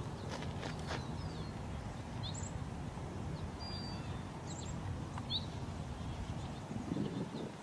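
Several short, high bird chirps, most sliding down in pitch, scattered about a second apart over a steady low rumble.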